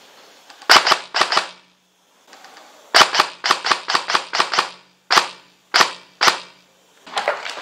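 Airsoft guns firing. There is a quick group of three shots about a second in, then a fast run of about eight shots from about three seconds in, then three single shots near the end.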